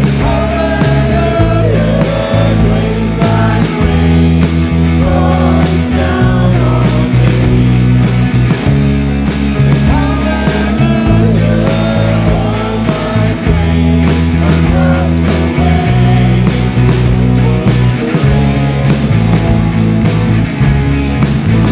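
Live worship band playing a praise song: drum kit with cymbals, electric bass and electric guitar, under voices singing the melody.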